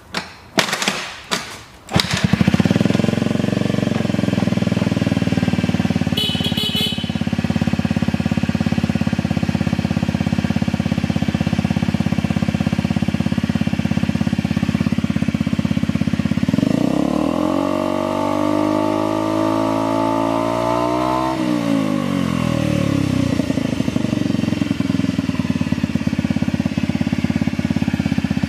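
Honda Zoomer FI scooter's small four-stroke single-cylinder engine being cranked in a few short bursts and catching about two seconds in, then idling. A little past halfway the throttle is opened and the engine revs up, holds for a few seconds, and drops back to idle. The engine has an abnormal noise, as the seller notes.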